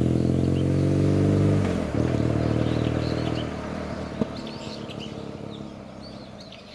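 BMW adventure motorcycle's engine accelerating away, shifting up a gear about two seconds in, then fading steadily into the distance. A single sharp click about four seconds in, and birds chirping as the engine dies away.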